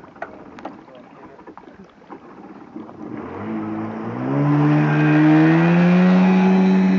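Jet ski engine revving up about three seconds in, climbing in pitch as the craft accelerates away, then running steadily at high revs.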